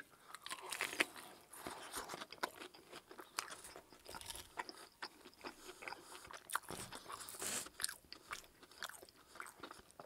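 A person chewing a mouthful of KFC Extra Crispy fried chicken: the crisp breading crunches in many small, irregular crackles.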